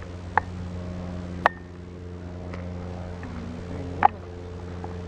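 A car's engine running with a steady low hum, with three short sharp knocks or clicks along the way.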